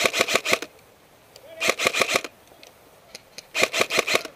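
Airsoft rifle firing three short bursts of rapid shots, about two seconds apart, each a quick string of sharp clicks.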